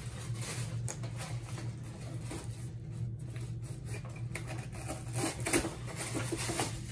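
Cardboard packaging and plastic wrapping being handled: irregular rustling and scraping as a cardboard box insert is lifted and turned, with a few louder rustles about five seconds in. A steady low hum runs underneath.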